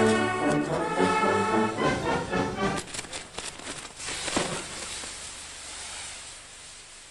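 Brass band music that cuts off about three seconds in, giving way to the crackling and sharp bangs of ground fireworks—a spinning Catherine wheel and exploding set pieces—which then fade away.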